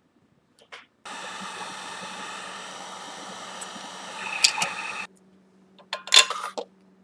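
Handheld heat gun blowing: a steady hiss over a low hum that starts abruptly about a second in and stops abruptly about four seconds later. A few sharp clicks follow near the end.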